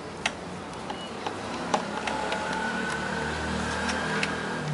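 Scattered light clicks and taps as a hand tool and ribbon cables are handled among the circuit boards of an opened keyboard, about nine in all. They sit over a steady background hum, and a faint thin whine comes in about two seconds in and runs until near the end.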